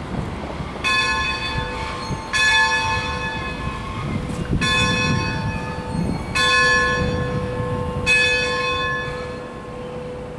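Bell of the ACL Baldwin K-14 4-6-0 steam locomotive No. 250 rung by hand: five clangs at uneven gaps of one to two seconds, each left ringing on.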